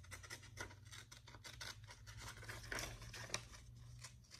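Scissors cutting through paper in a run of short, faint snips, with the sheet rustling as it is turned.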